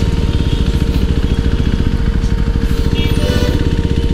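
KTM RC 390's single-cylinder engine running steadily at low speed as the bike rolls through slow traffic.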